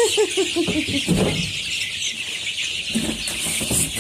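A dense chorus of baby chicks peeping continuously, with a quick run of about six low clucks in the first second and a brief rustle just after one second.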